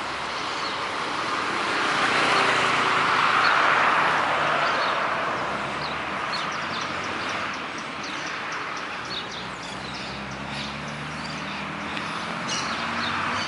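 Small birds chirping in many quick, high notes over the noise of town traffic. A vehicle passes, loudest a few seconds in, and the chirping comes thicker in the second half.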